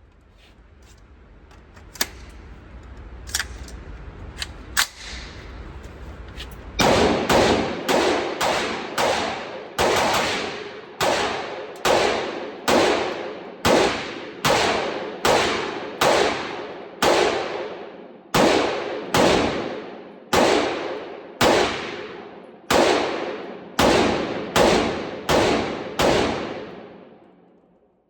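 PSA 300 Blackout rifle firing about thirty shots one at a time, roughly two a second, each followed by a long ringing decay. Before the firing, a few faint sharp clicks.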